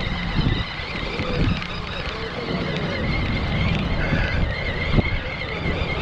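Wind buffeting the microphone, with a spinning reel being cranked steadily to bring in a hooked fish. A single sharp click about five seconds in.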